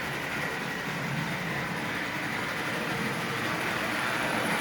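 Antique Marx toy-train locomotive's manual E-unit electric motor running steadily as the locomotive pulls its cars around the track, with a steady high hum. The motor is running well. It grows a little louder near the end.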